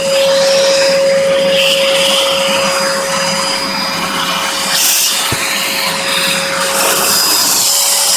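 Vacuum cleaner running steadily with a constant hum, sucking dust out of an old CRT television's chassis; the rush of air through the nozzle rises and falls as it moves over the circuit board.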